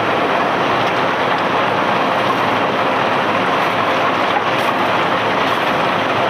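Barge unloading machinery running steadily with a dense, even rushing noise.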